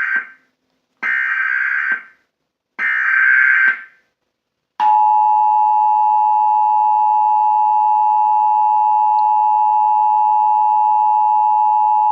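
Emergency Alert System tones in a TV broadcast: the close of one burst and then two more one-second bursts of the buzzing SAME digital header, followed nearly five seconds in by the steady two-tone 853/960 Hz attention signal. Together they open a National Periodic Test of the EAS.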